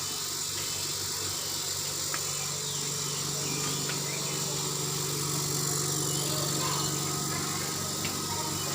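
Izumi Max compressor engine running steadily at an even speed.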